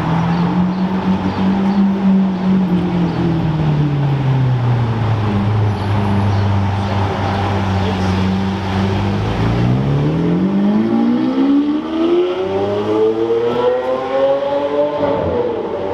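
Lamborghini Aventador SV's V12 engine running low and steady as the car rolls past, then accelerating with a rising pitch from about ten seconds in that climbs until near the end.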